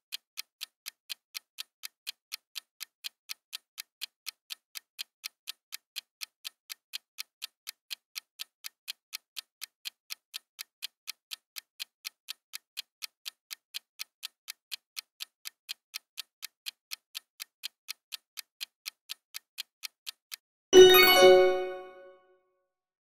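Countdown-timer sound effect: an even, clock-like ticking a little more than twice a second. Near the end the ticking stops and a louder chime rings out as time runs out, then dies away over about a second and a half.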